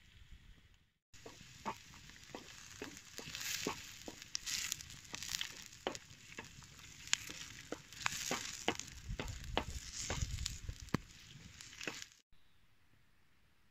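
Chopped red onion sizzling and frying in a large shallow steel pan (sac tava) over a wood fire, stirred with a wooden spoon that clicks and scrapes against the metal. The sizzle and clicking cut off sharply near the end.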